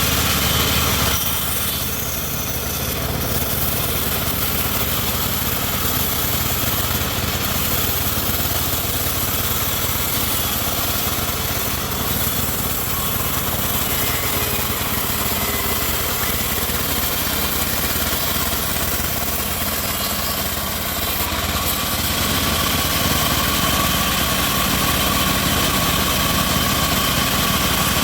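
Homemade bandsaw sawmill running steadily, its motor and blade giving a continuous mechanical drone that eases slightly a couple of seconds in and again around twenty seconds, then steps up a little about 22 seconds in.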